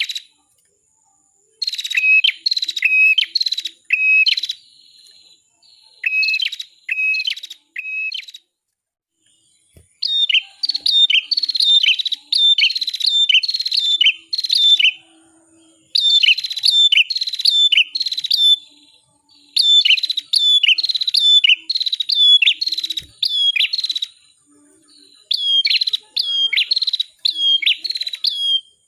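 Red-headed prenjak (cimblek kepala merah), a small songbird, singing in bouts of rapid, sharp repeated chirps, several notes a second, each bout a few seconds long with short pauses between.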